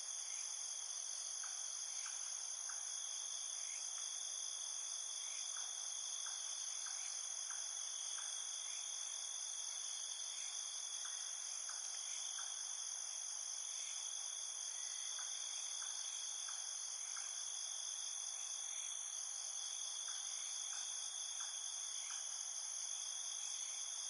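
Steady, high-pitched chorus of insects, several continuous shrill layers at once, with faint short chirps in little groups of three or four every few seconds.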